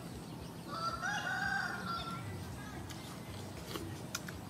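A rooster crows once, a single drawn-out call of about a second and a half that starts just under a second in.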